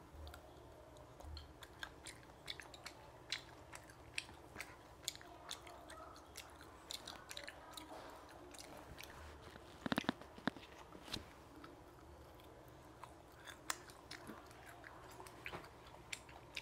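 Close chewing of deep-fried, batter-coated coconut worms (palm weevil larvae): crisp, crunchy clicks come again and again, with a louder run of crunches about ten seconds in.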